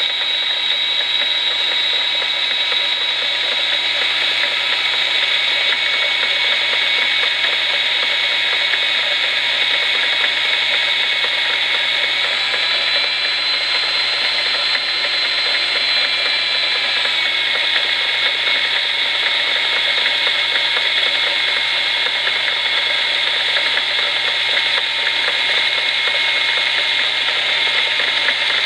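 A die grinder spinning a small burr at medium speed, boring into a rubber stopper turning in a lathe, with the lathe running: a loud, steady high whine over a grinding noise. About halfway through, the whine shifts slightly in pitch for a few seconds.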